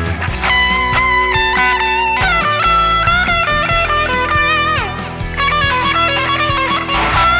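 Sparrow Rat Rod electric guitar, a Les Paul-style import with Kent Armstrong pickups, played amplified: a lead line of single notes with string bends and vibrato, and a note sliding down about five seconds in.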